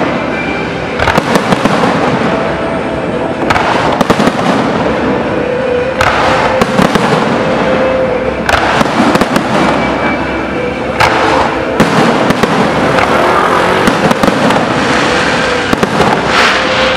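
Aerial fireworks display: shells bursting overhead one after another, with repeated sharp bangs and dense crackling in between.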